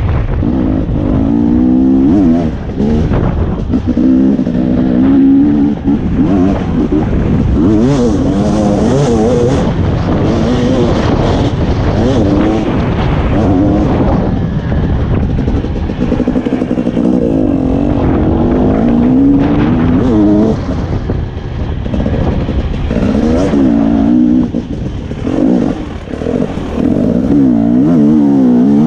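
Off-road dirt bike engine revving up and down as it is ridden, its pitch rising and falling again and again through the gears, with wind buffeting the microphone.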